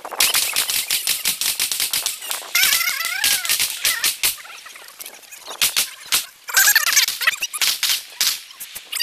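Pistol shots fired in quick strings during a practical shooting stage: many sharp cracks in rapid succession, with a short lull about halfway.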